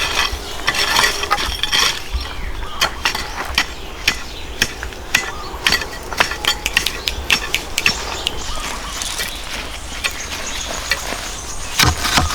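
Irregular sharp knocks and clinks of hand tool work, hard objects striking one another over steady outdoor background noise.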